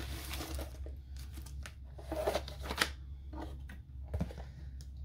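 Plastic packaging rustling and crinkling as a diamond-painting kit's bagged contents are handled and unpacked, with a few sharper clicks and rasps along the way. A steady low hum runs underneath.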